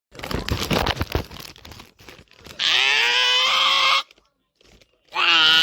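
Loud screaming noises: a harsh, crackling rasp for the first two seconds, then a long scream that rises in pitch and holds for over a second. A second scream starts near the end.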